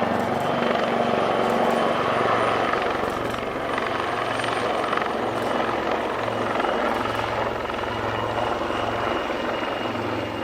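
AgustaWestland AW159 Wildcat HMA2 helicopters flying a display in formation: steady rotor noise and the whine of their twin turboshaft engines.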